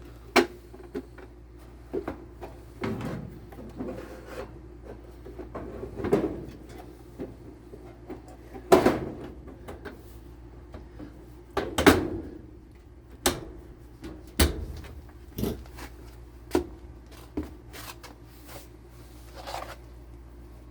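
Furnace filter access cover being worked back into place: a run of irregular knocks, clacks and scrapes, several of them sharp, over a steady low hum.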